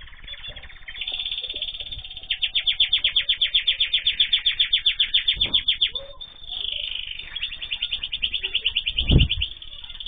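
Small cage birds chirping in an aviary: a fast, even trill of about ten notes a second, in two long runs, over softer chirps. A dull thump comes about nine seconds in.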